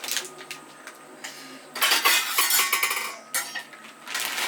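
Kitchen clatter of utensils and dishes being handled, knocking and clinking, loudest in a burst of about a second some two seconds in.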